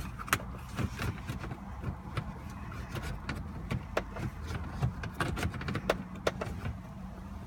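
Plastic interior trim pieces of a car's centre console being handled and pressed into place: scattered small clicks and taps, over a steady low hum.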